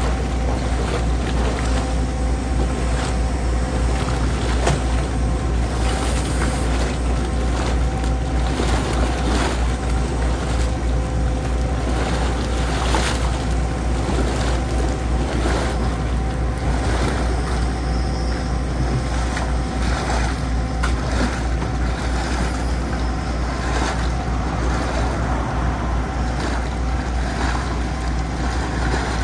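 Soil-mixing rig's diesel engine and hydraulics running steadily under load as its mixing tool works down into a slurry-filled trench: a deep constant drone with a steady hum above it and scattered short knocks.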